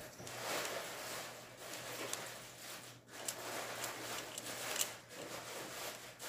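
Plastic Pyraminx speed puzzle being solved by hand, its layers and tips twisted in quick succession: a steady plastic rustling broken by scattered sharp clicks.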